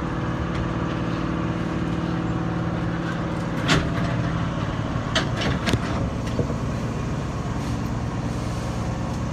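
Steady hum of a Hankyu electric train's onboard equipment while the train stands still at a station, with several short knocks about four to six seconds in.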